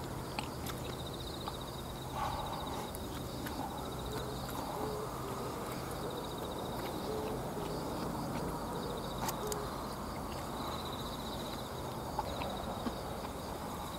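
Rural outdoor ambience: insects trilling in short, repeated pulsing bursts, with several short low hoot-like bird calls through the middle and a few faint clicks.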